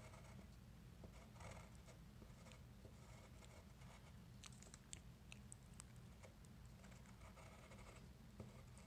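Faint scratching of a graphite pencil drawing short strokes on paper, with a few sharp light ticks about halfway through, over a steady low hum.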